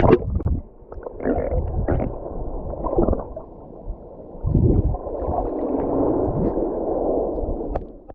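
Muffled ocean water sloshing and gurgling around the microphone in uneven surges.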